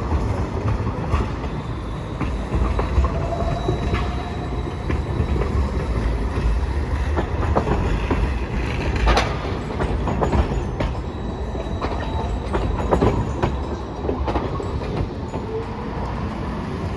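Hiroden streetcar running through a street junction: a steady low rumble with sharp clacks of wheels over the rail joints and crossings, and a faint rising whine near the end.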